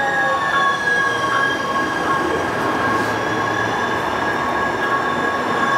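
Green Line light-rail train pulling into the station and slowing, with a rushing rumble under steady high-pitched tones and a whine whose higher tones slowly fall in pitch.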